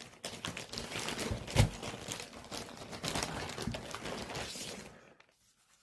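Packaging being handled and unwrapped: irregular crinkling and rustling with light knocks, and one sharp louder knock about a second and a half in, dying away near the end.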